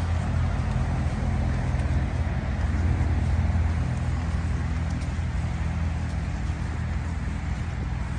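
Steady low drone of road traffic, with a continuous low engine hum under it.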